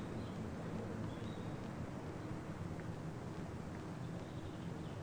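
Faint outdoor background: a steady low rumble and hiss, with a few short, faint high chirps.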